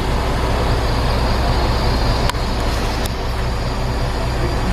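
Heavy crane's engine running steadily with a low hum, two light clicks over it partway through.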